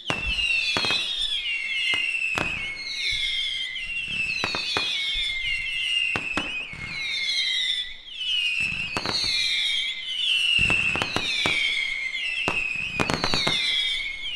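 Fireworks battery firing a rapid string of whistling shots: overlapping whistles, each falling in pitch as it burns, punctuated by sharp launch pops and cracks.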